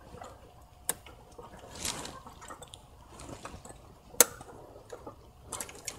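Hand work on the plastic intake manifold and injector wiring of a VW/Audi 2.0T TSI engine while it is being seated: scattered clicks and rustling of plastic parts. There is a sharp click about a second in, a short rustle near two seconds, and a louder click about four seconds in.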